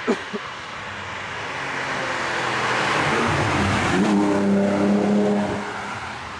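Cars passing at speed on a racetrack: tyre and engine noise swells over about four seconds to a peak with a steady engine note, then fades away. A brief sharp sound comes at the very start.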